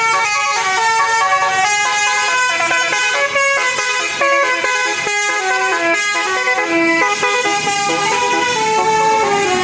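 Bus telolet horn of the Basuri type, a set of electric horn trumpets playing a fast tune of stepped notes without a break.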